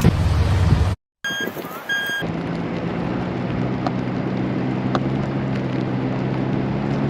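A vehicle engine running steadily with a low hum. Shortly before it settles in, after a brief dropout about a second in, there are two short high beeps.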